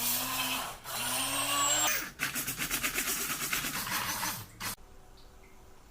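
Blender blending wheatgrass: two short pulses with the motor pitch rising as it spins up, then a steady run of about three seconds with a fast choppy rattle, cutting off suddenly.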